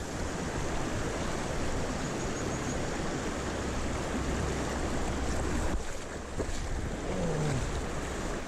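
Mountain stream water rushing steadily, with wind rumbling on the microphone that eases about two-thirds of the way in. A short low falling tone sounds near the end.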